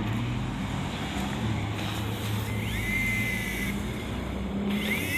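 Toy remote-control helicopter's rotor running with a steady low hum, and a short high-pitched tone about three seconds in.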